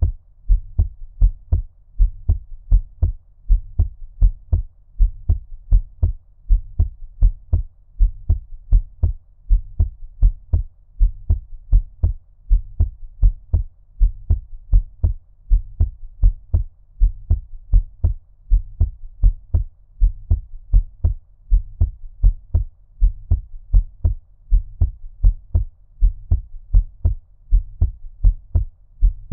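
A heartbeat at a normal resting rate: steady, evenly spaced double thumps (lub-dub) that are deep and muffled, as if heard under water.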